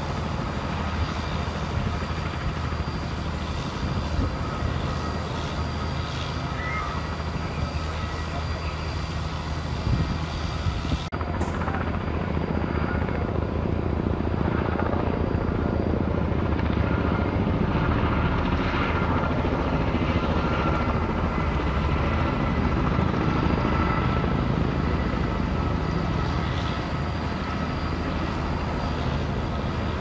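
Firefighting helicopter flying over, its rotor and engine running steadily, with an abrupt cut about eleven seconds in after which it is louder.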